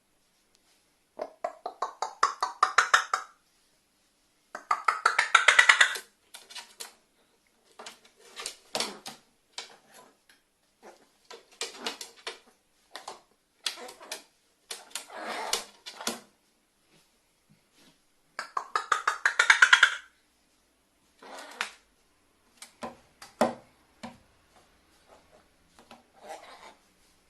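Pet carrion crow making rapid clicking, rattling calls, a string of short bursts of one to two seconds each, with the loudest bursts near the start and about two thirds of the way in.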